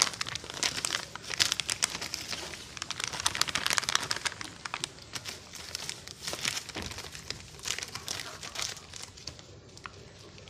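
Plastic cat-food bag crinkling in quick, irregular rustles as an otter paws and noses at it. It dies down near the end.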